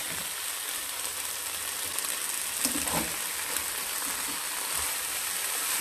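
Kale, spinach, bell peppers and broccoli sizzling in oil in a hot pan, with a utensil tossing the greens. A few clacks of the utensil against the pan come between about two and three and a half seconds in.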